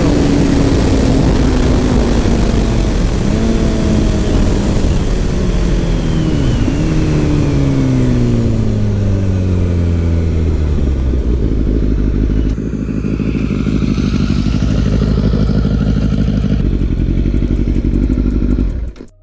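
Kawasaki ZX-10R's inline-four engine, its note falling steadily as the bike slows, with two brief jumps in pitch along the way, then running at a steady low note. A rushing noise drops away about twelve seconds in, and the whole sound cuts off sharply just before the end.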